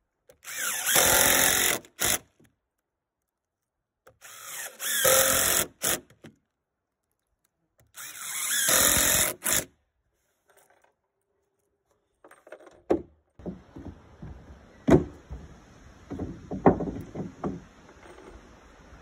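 Cordless driver sinking three wood screws through charred softwood floorboards into the joists. Each run lasts about a second and a half and ends with a short final pulse as the screw seats. In the last third come quieter scattered knocks and clicks of boards being handled.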